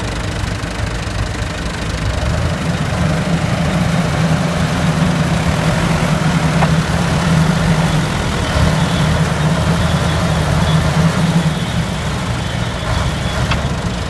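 A vehicle engine running steadily, growing louder about two seconds in and easing off again near the end.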